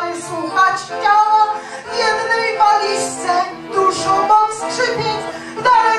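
Women's vocal ensemble singing a song together, in phrases of long held notes.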